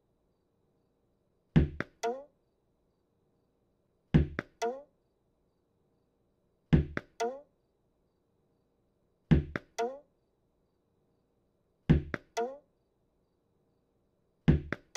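A tennis ball thrown against a wall over and over. Each throw is a loud thud followed quickly by two lighter bounces, repeating six times at an even pace about every two and a half seconds.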